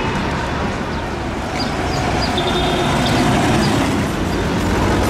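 Düwag GT6 tram running along street track amid city traffic, with a brief high-pitched whine a couple of seconds in.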